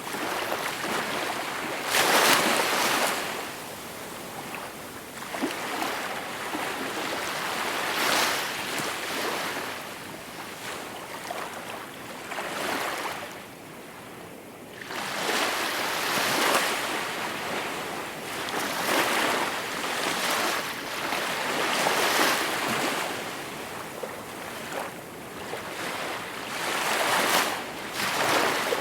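Gentle sea waves washing onto the shore, the surf swelling and fading every few seconds, with a brief lull about halfway.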